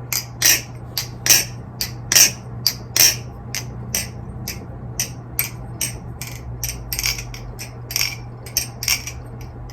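NRB Vortex balisong (butterfly knife) with channel-construction handles being flipped: the handles clack closed and open in quick, irregular metallic clicks, a few a second, louder in the first few seconds.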